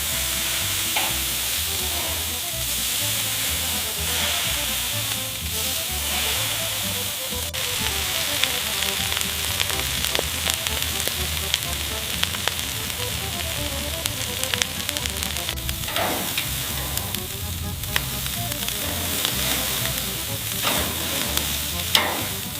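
Food sizzling steadily on a hot charcoal grill, with occasional crackles, under background music.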